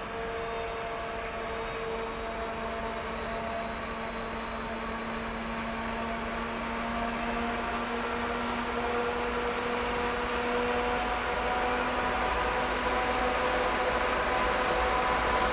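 Double-headed BR232 diesel locomotives, with their V16 diesel engines, hauling a heavy freight train toward the listener under power. The engine drone grows steadily louder as they approach, with a thin high whine slowly rising in pitch.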